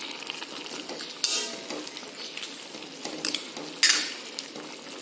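Steel ladle stirring sprouted-pulse usal in a metal kadhai over a steady sizzle of the simmering curry, scraping loudly against the pan twice, about a second in and near the end.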